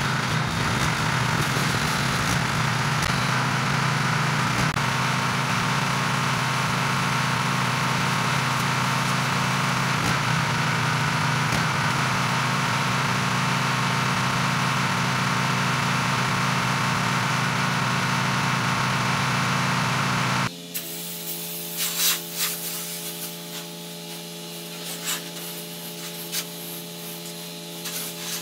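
4 GPM gas-engine pressure washer running steadily while water sprays from the wand onto house siding. About two-thirds of the way in the sound changes: the engine hum is fainter and the spray hisses, with short sharp spatters.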